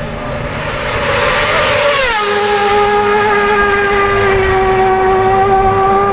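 Road-racing motorcycle passing at full throttle: its engine note climbs, then drops sharply about two seconds in as it goes by, and a loud, steady high engine note holds after it.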